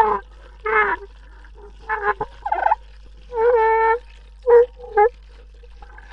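Hydrophone recording of underwater sound: a series of about seven short pitched calls and squeals, some bending or falling in pitch, the longest held for most of a second near the middle, over a steady low hum.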